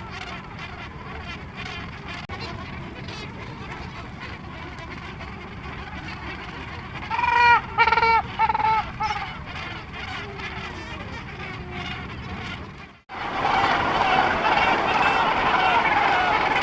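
A Cape gannet breeding colony calling: a dense, continuous din of many harsh, honking calls. A few loud calls from a nearby bird stand out in the middle. The sound cuts off abruptly about 13 seconds in, and a louder, denser chorus of the colony follows.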